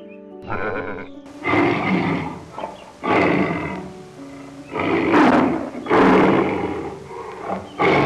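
A sheep bleats once about half a second in. Then a tiger gives a series of about five rough, growling calls. Background music plays throughout.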